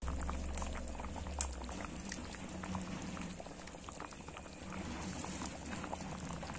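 Thick fish curry boiling in a wok, a steady bubbling with many small pops, and one sharp click about one and a half seconds in.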